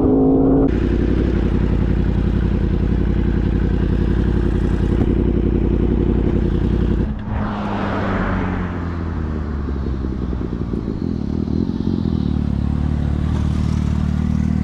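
Sport motorcycle engine heard from on board the bike, running at a steady pace with wind rush. After a cut about seven seconds in, the engine note drops lower and settles to a steadier low running as the bike slows and stops.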